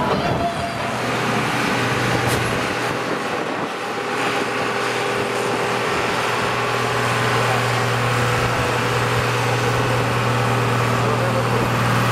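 Farm tractor's diesel engine pulling a weight-transfer sled under heavy load, a steady, even drone.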